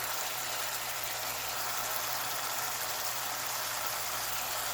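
Berbere sauce with water and Ethiopian butter sizzling and bubbling steadily in a pan, over a steady low hum.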